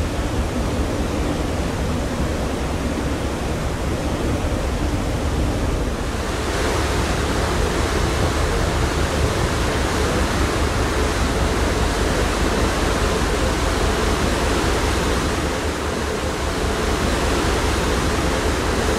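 Steady rush of wind and sea aboard a ferry, with a deep low rumble underneath; the hiss grows brighter about six seconds in.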